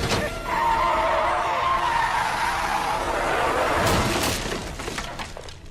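Car tyres skidding with a long, wavering squeal, then a couple of sharp knocks about four seconds in as the car slides out of control, before the sound dies away.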